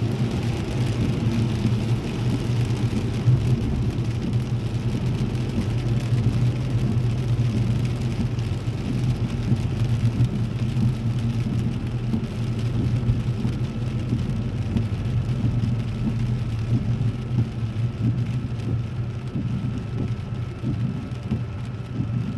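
Rain on a car heard from inside the cabin while it drives, over a steady low engine and road rumble.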